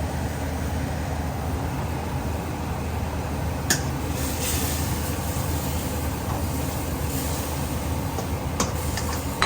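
Steady rushing hum and hiss of a kitchen extractor fan over a wok of stir-frying vegetables, with a single sharp clink about four seconds in and a fainter one near the end.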